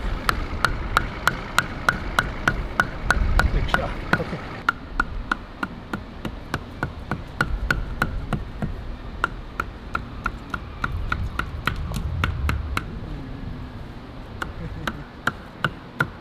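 A tent stake being hammered into the sand: steady strikes about two to three a second, each with a short ringing note, broken by a few brief pauses.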